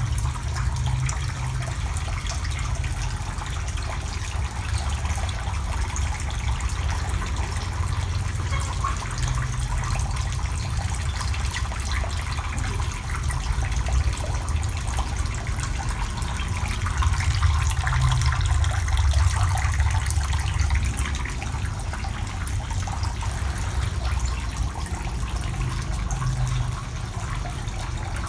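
Water running and trickling steadily into a shallow tiled tank, over a steady low rumble.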